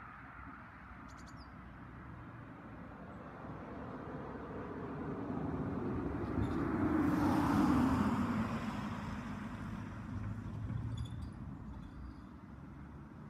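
A road vehicle passes by out of sight. Its tyre and engine noise swells for several seconds, peaks with a falling pitch about seven to eight seconds in, then fades. Birds chirp faintly.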